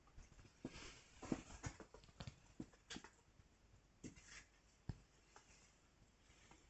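Very faint, scattered rustles and light ticks of footsteps and movement on dry dirt and concrete, thinning out after about five seconds.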